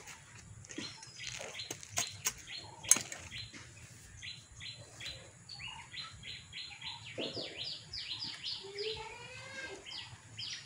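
Birds chirping: a long series of short, high notes that quickens into a fast run near the end. A few sharp clicks come about two to three seconds in.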